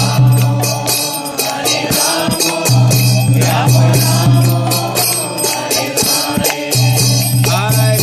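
Devotional kirtan: a mantra chanted over small hand cymbals struck in a quick, steady beat, with a low held note underneath that comes and goes.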